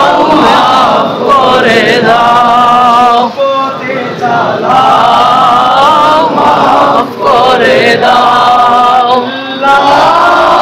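Men singing a Bengali Islamic devotional song in long, drawn-out held notes, phrase after phrase with brief breaks for breath.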